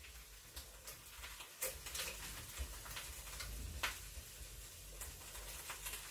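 Faint kitchen sounds: a few light taps and clicks, the clearest about four seconds in, as an egg is cracked at the rim of a pot for poaching, over a faint steady sizzle.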